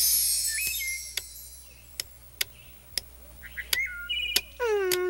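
Cartoon sound effects: a high shimmering sweep fades out, then a light switch is clicked again and again, about seven sharp clicks, mixed with short chirping glides and a falling tone near the end.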